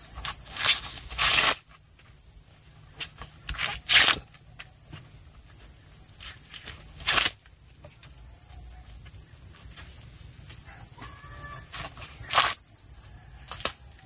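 Steady high-pitched insect drone, broken about four times by loud, sudden rustling and cracking of corn plants as ears are picked from the stalks.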